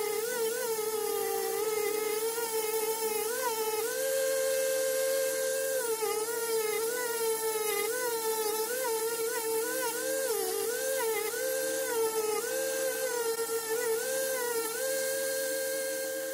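Rotary tool with a felt polishing wheel running at high speed, buffing brass, a steady whine. Its pitch dips briefly again and again as the wheel is pressed against the metal and the motor slows under the load, then rises back.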